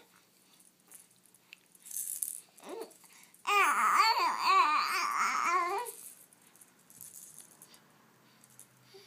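A young child babbling and squealing with a wavering, sliding pitch for about two seconds in the middle, with rattling noises around it.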